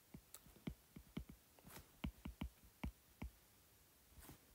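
Faint, irregular clicks of a stylus tapping on a tablet screen while handwriting, a dozen or so over a few seconds.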